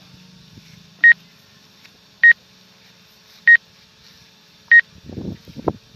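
Short, high electronic beeps, four of them, about 1.2 seconds apart, with a faint low hum beneath. Brief voices come in near the end.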